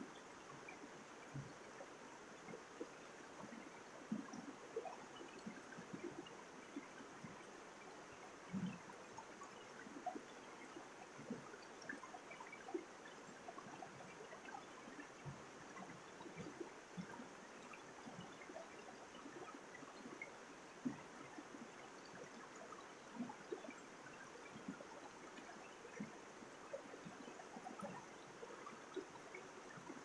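Shallow mountain stream running over rocks, a steady rush of water with frequent small gurgles, plops and splashes.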